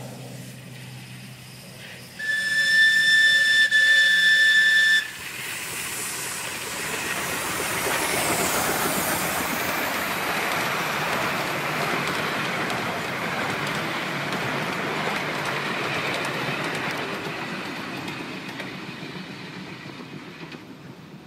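Miniature steam locomotive, a replica of an SR 'Merchant Navy'-class 4-6-2, sounding its steam whistle about two seconds in: one long blast of about three seconds with a brief break in it. The train then passes close by, the rumble of wheels on the rails and the hiss of steam swelling and then fading as it moves away.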